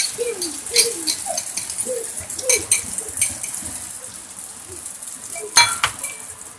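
Beaten egg sizzling in a hot non-stick wok, with a fork clinking against the egg bowl several times, the loudest clink about five and a half seconds in.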